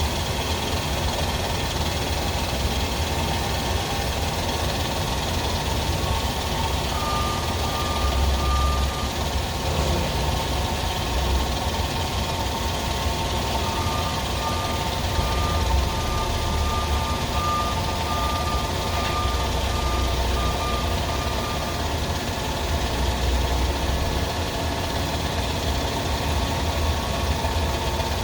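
FH680 machine running steadily with a strong low hum. A faint high whine pulses on and off briefly early on and again through the middle. This is the noise the owner traces to a suspected bearing.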